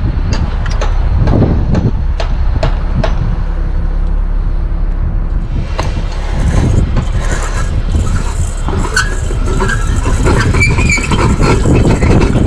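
Hands working a bulb out of a stadium floodlight's socket: a run of sharp clicks in the first few seconds, then rustling and clinking of the fixture and bulb, over a loud steady low rumble.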